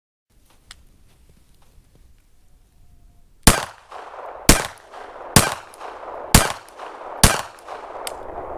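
Five shots from a Glock 42 .380 pistol, about a second apart, each trailing off in echo. A light click near the end fits the next round misfiring: the primer struck but not going off.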